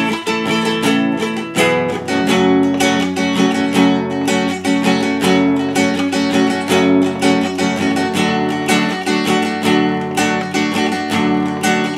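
Nylon-string classical guitar with a capo strummed in a steady rhythm, the chords changing every second or two.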